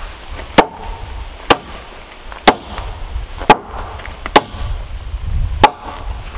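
Six sharp blows of a blue-handled hand tool into a pine half-round log, about one a second, each with a short ringing note.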